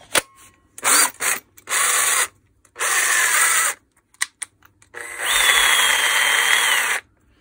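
Makita DDF453 18 V cordless drill's motor whirring in several short trigger pulls, then in one run of about two seconds near the end, with a few light clicks in between. The drill's gearbox clutch is broken.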